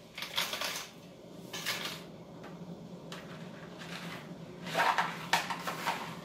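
Dry fettuccine going into a pot, rattling against the pot in about four short bursts over a faint steady hum.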